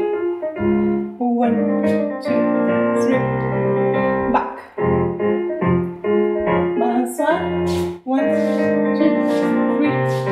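Piano accompaniment for a ballet class exercise: a melody over chords, dropping away briefly twice between phrases.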